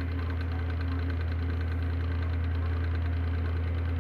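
Electric desk fan running with a steady low hum and a rapid knocking rattle, the sign of bad motor bearings.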